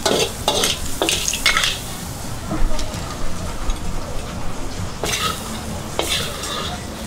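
Metal wok spatula scraping and knocking against a black wok as stir-fried clams are scooped out onto a plate, with the sauce left in the hot wok sizzling. The scrapes come in a quick run at the start and again about five seconds in.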